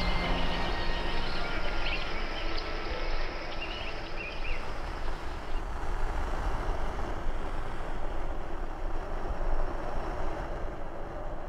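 Steady city traffic ambience: a low rumble under a haze of noise, with a few faint high squeaks, easing slightly after a few seconds.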